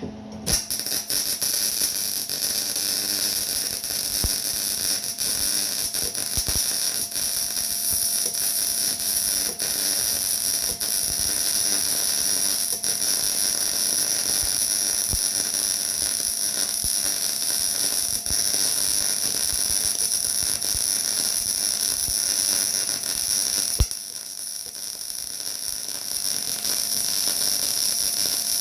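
A high-speed power tool running continuously with a high whine, easing off for a moment about 24 seconds in and then running again.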